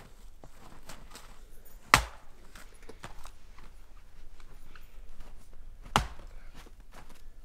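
Firewood being chopped: two sharp strikes about four seconds apart, with small knocks and clatter of wood between.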